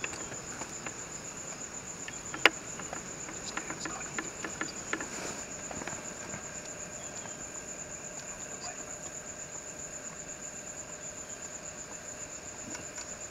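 Night insects trilling steadily at a high pitch, a fine even pulsing. A single sharp click about two and a half seconds in, followed by a few fainter clicks.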